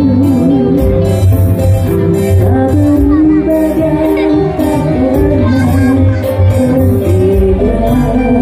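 Live band music played loud through a PA system: electronic keyboard and electric guitar over a steady beat, with a woman singing a melody with a wavering vibrato into a microphone.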